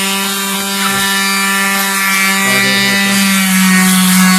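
Electric sander running steadily at full speed, sanding plastic bumper trim with 80-grit paper; its motor hum grows slightly louder near the end.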